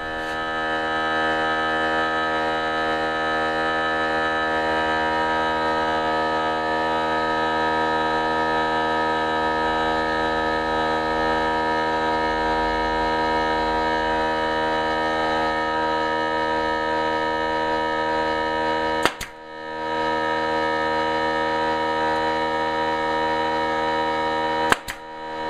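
A machine running steadily with a constant multi-tone whine and hum that comes up to speed in the first second or so. It drops out briefly twice near the end.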